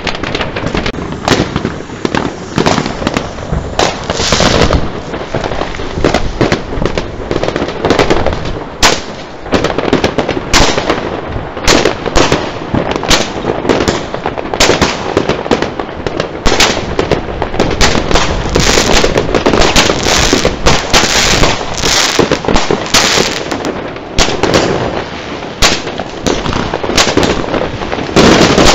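Fireworks going off nonstop: aerial shells bursting, with many sharp bangs and cracks overlapping several a second and no pause between them.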